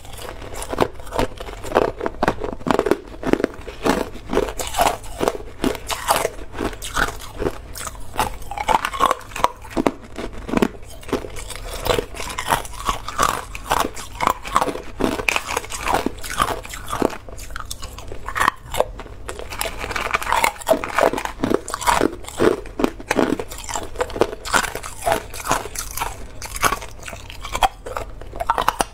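Chunks of hard, clear ice being bitten and chewed, a dense, irregular run of sharp cracks and crunches.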